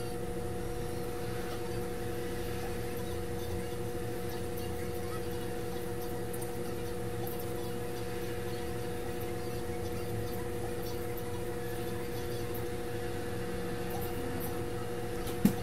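Steady electrical-mechanical hum with several fixed tones from running workbench equipment, unchanging throughout, with one short click near the end.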